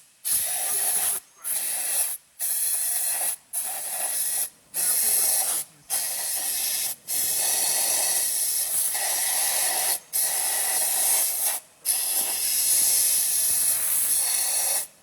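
Hot-air blower on a paper lid machine blowing with a steady hiss, cut by brief sudden gaps, several in the first seven seconds and a few later.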